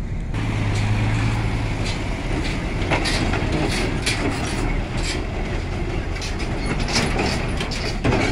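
Cargo truck driving off a ferry's steel loading ramp: its engine running with a steady low hum, then a string of clanks and knocks from about three seconds in as the wheels cross the ramp plates, the loudest near the end.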